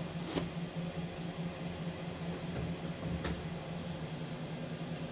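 Steady low mechanical hum, like a fan or air-conditioning unit running, with two faint clicks, about half a second in and again about three seconds in.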